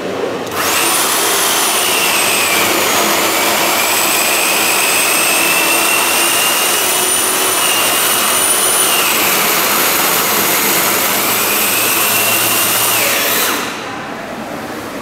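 A power tool's electric motor runs at full speed for about thirteen seconds, starting about half a second in and cutting off near the end. A high whine over a loud rushing noise wavers in pitch as it runs.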